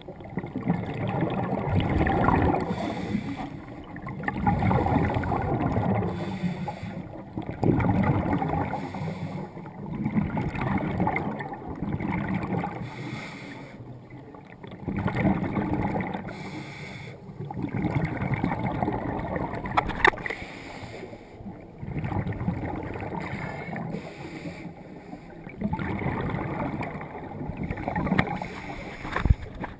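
Scuba regulator exhaust bubbles heard underwater: a low bubbling rush that swells and fades every few seconds with the diver's breaths.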